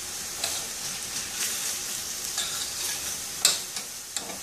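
Diced vegetables sizzling in a stainless steel skillet while a spoon stirs black bean paste into them, scraping and clicking against the pan several times, loudest about three and a half seconds in.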